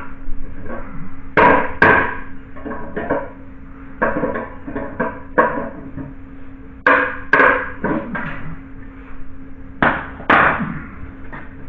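Hammer and pry bar knocking and scraping on metal and wood: sharp knocks, mostly in pairs a few seconds apart, each trailing off in a short grating scrape.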